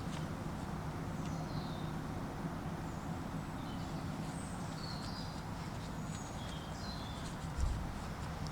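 Faint bird chirps, short high falling notes scattered through the middle, over a steady low background hum, with one dull thump about seven and a half seconds in.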